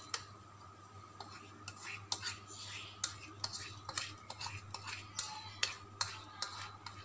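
Scattered soft clicks and light scrapes of fingers against a ceramic bowl as a milk-and-yeast mixture is poured out of it into flour, over a faint steady hum.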